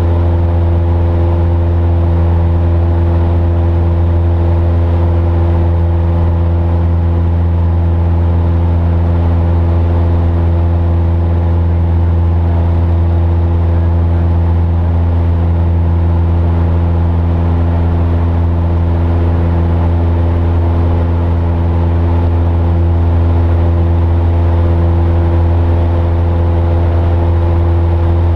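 Piston engine and propeller of a single-engine light airplane droning steadily in flight, heard from inside the cabin as a loud, even low hum.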